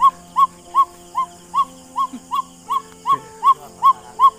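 A bird call: one short, whistle-like note that rises and falls, repeated very evenly nearly three times a second.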